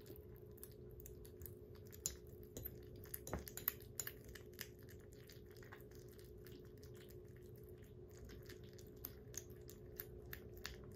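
Kittens lapping and chewing soft weaning food from ceramic bowls: faint, rapid wet clicks and smacks, busiest in the first few seconds, over a steady low hum.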